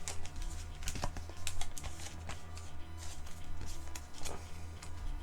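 Pokémon trading cards being handled by hand: irregular soft clicks and taps as the cards slide and knock against each other, over a steady low hum.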